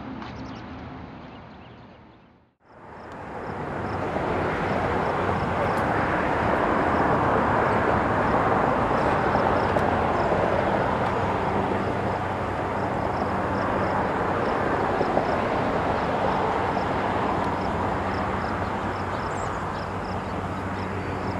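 Boeing B-29 Superfortress's four radial engines running at power, a steady drone with a low engine hum. The sound fades out and cuts to silence about two seconds in, then comes back and holds.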